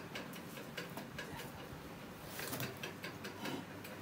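Light, quick ticks, several a second, over faint rustling.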